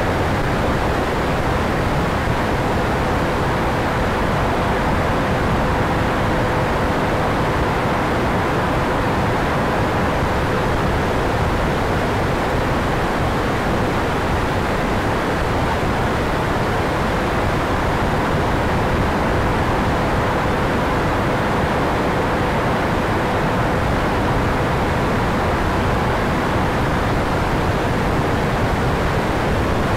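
Steady rushing wind noise on the onboard camera of an E-flite Viper 70 mm electric ducted-fan jet in flight, with a faint steady hum underneath.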